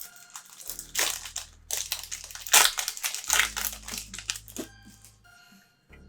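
Crinkling of a trading-card pack's wrapper as it is handled and opened, in a run of short irregular crackles.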